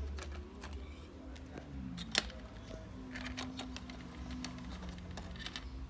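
Small clicks and taps of a laptop motherboard and its cables being handled and pressed into the plastic bottom housing, with one sharper click about two seconds in.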